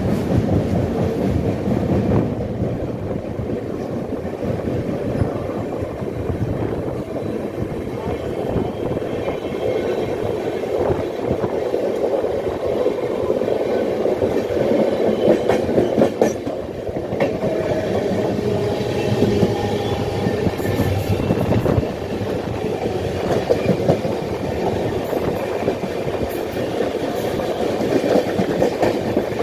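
Two Indian Railways passenger trains running side by side on parallel tracks, heard from aboard one of them: a steady rumble of wheels on rail with a clickety-clack of clicks over the rail joints.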